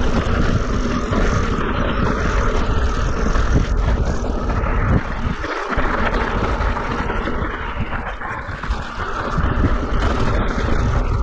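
Wind rushing over a GoPro's microphone with a mountain bike's tyres rolling and rattling over loose rock and gravel on a steep, rocky descent.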